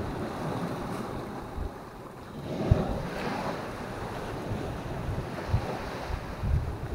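Sea waves washing against a rocky shore, with wind gusting on the microphone; the wash swells about two and a half seconds in.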